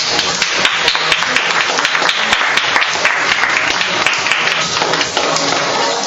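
Audience applause, a dense patter of clapping over background music, fading near the end as the music comes back through.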